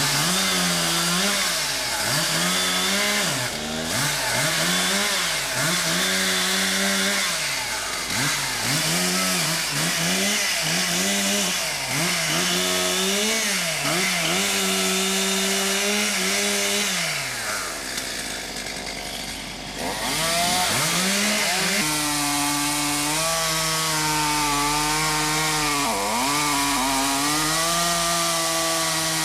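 Stihl MS200T top-handle two-stroke chainsaw revved up and down in quick bursts, then after a short lull held at steady high speed while cutting wood, its pitch dipping briefly under load.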